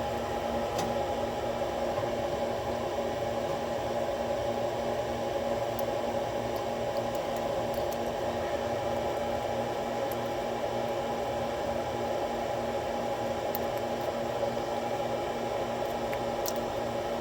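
Steady machine hum and hiss, like a running fan or motor, with a low tone that pulses rapidly and evenly, and a few faint small clicks.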